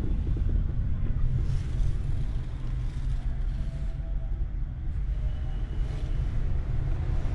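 Steady low rumble of road traffic noise from a nearby road.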